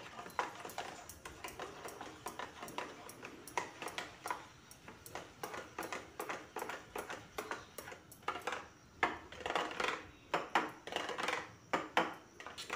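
Steel spoon stirring thick semolina batter in a stainless-steel bowl, clinking and scraping against the bowl's sides in quick, irregular strokes.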